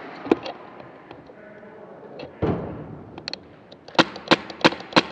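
Airsoft gun firing: a few scattered single shots, then a quick string of about five semi-auto shots in the last second.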